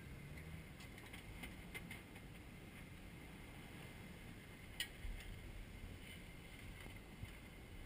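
Jeep Wrangler engine running low and steady as it crawls slowly over rock, heard from a short distance, with a few faint clicks and one sharper click about five seconds in.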